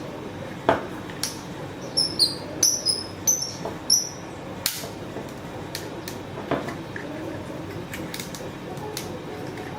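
Printed plastic tightener screw being turned into a 3D-printed PETG stitching-pony fixture: a quick run of short, high squeaks about two to four seconds in, with scattered clicks and knocks of plastic parts being handled.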